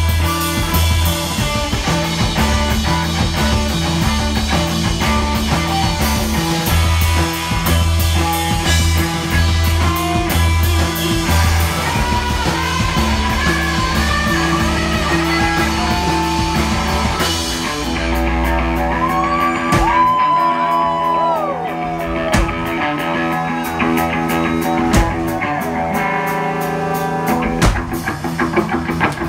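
Live psychedelic rock band playing, with electric guitars, bass and drum kit. About eighteen seconds in, the drums and low bass drop away, leaving guitar lines with bending notes, and the drums come back in near the end.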